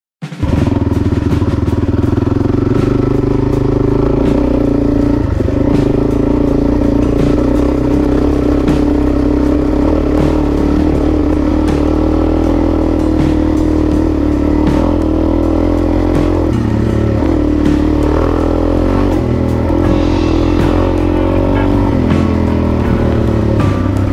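A stock 2009 Suzuki DR-Z400E's single-cylinder four-stroke engine running at a fairly steady pitch, cutting in suddenly about half a second in, with background music alongside.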